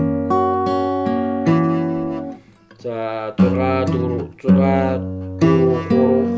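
Acoustic guitar picked one note at a time with a plectrum, arpeggiating chord shapes so the notes ring over one another. The playing breaks off about two and a half seconds in and starts again around four and a half seconds.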